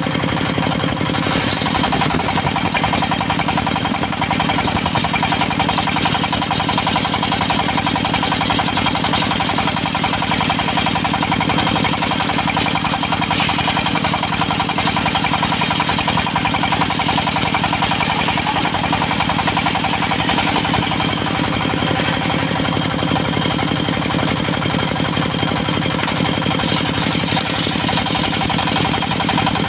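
Diesel engine of a portable circular-saw sawmill running steadily.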